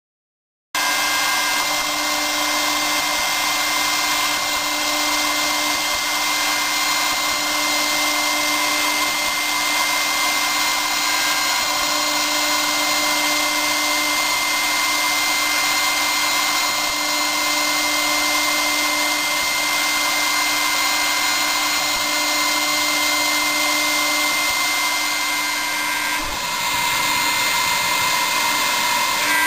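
CNC milling machine's spindle running at about 17,000 rpm with a 2 mm solid-carbide end mill cutting white plastic: a steady whine and cutting noise that starts abruptly just under a second in, with a brief dip in level near the end.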